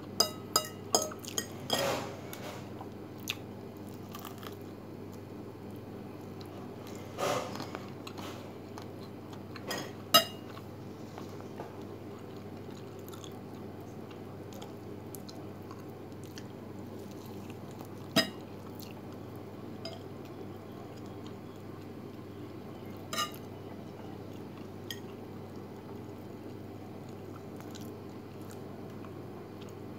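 Eating at a table: a metal fork clinks against a plate several times in the first couple of seconds, with a few more single clicks later, and chewing of fried chicken, over a steady low hum.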